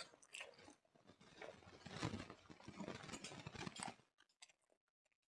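Faint chewing and wet mouth sounds of a person eating a mouthful of smoked pork and rice, scattered small clicks that come thickest between about two and four seconds in.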